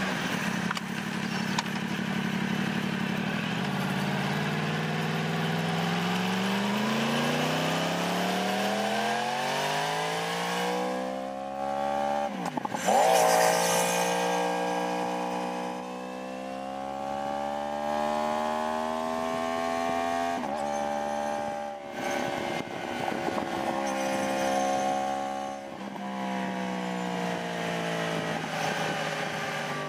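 2015 Yamaha R1's crossplane inline-four engine heard from on the bike while riding: the pitch climbs steadily under acceleration, dips sharply and jumps back at a quick gear change about twelve seconds in, then holds steady at cruise, stepping down in pitch twice later. Wind rush runs underneath.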